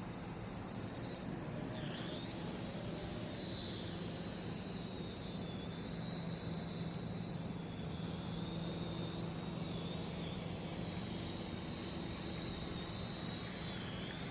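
Toy quadcopter's motors and propellers whining in flight. The pitch dips sharply about two seconds in, then wavers up and down as the throttle changes, over a steady low hum.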